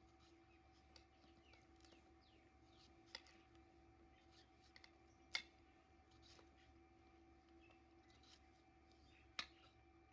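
Near silence: a low steady hum with a few faint chirps and three sharp clicks, the loudest about halfway through.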